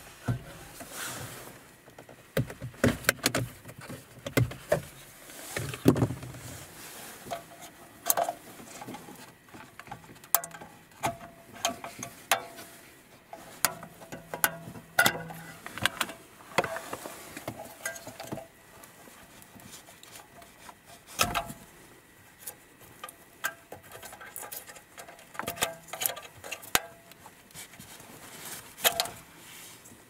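Irregular plastic clicks, snaps and rattles as wiring-harness connectors are unplugged from the back of a car radio head unit, with handling knocks from the unit itself.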